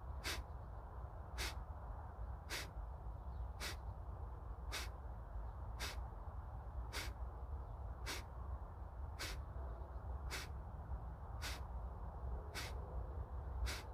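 Kapalbhati breathing: short, forceful exhalations through the nose, evenly paced at about one a second, each a brief sharp puff, with the inhalation left passive in between. A steady low rumble runs underneath.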